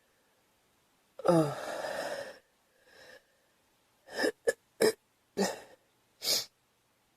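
A girl gives a falling, voiced 'oh' that trails off into a breathy exhale about a second in, then coughs five short times in quick succession.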